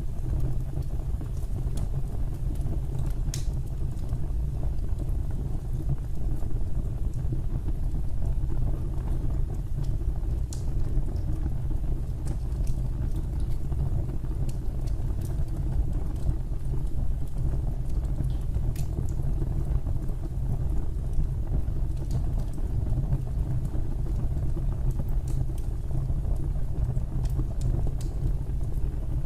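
Wood fire burning in a fireplace: a steady low rumble with scattered sharp crackles and pops at irregular intervals.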